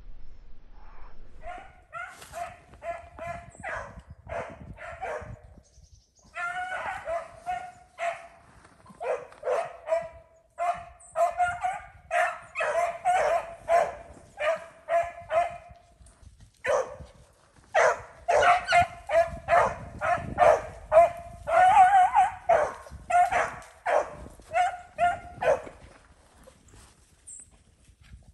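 Beagles baying in quick runs of short cries as they run a rabbit's track, with brief pauses about 6 and 17 seconds in. The cries stop near the end.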